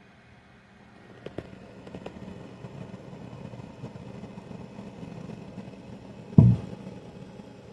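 Handling of a desktop computer under test: a few light clicks, a low steady hum that comes up about a second in, and one loud thump about six and a half seconds in.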